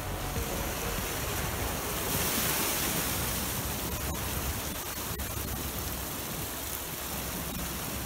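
Sea waves breaking and washing across a flat rock platform, the surge swelling about two seconds in and then easing back.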